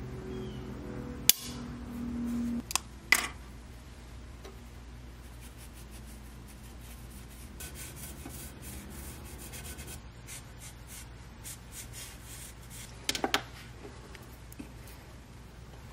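Marker tracing around a paper template on a steel saw blade, giving a faint scratchy rubbing, with a few sharp clicks and taps as the template and blade are handled, one cluster near the end.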